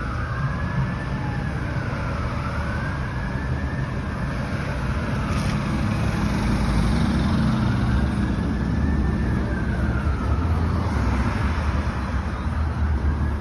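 Fire apparatus siren on wail, rising and falling slowly with one cycle every few seconds, heard over the low rumble of engines and road traffic.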